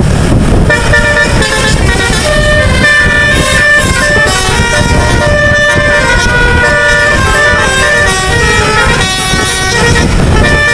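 Bus 'telolet' musical air horn playing a tune: a quick run of short notes stepping up and down in pitch, over a low rumble.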